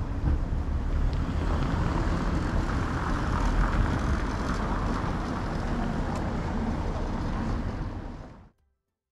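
Street ambience of a small town: steady traffic and street noise with a low rumble, fading out to silence near the end.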